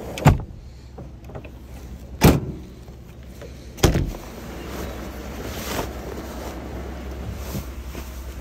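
Three hard slams about two seconds apart as the back of a Ford pickup with a camper shell is shut; the last, about four seconds in, is the shell's rear glass hatch being pulled down.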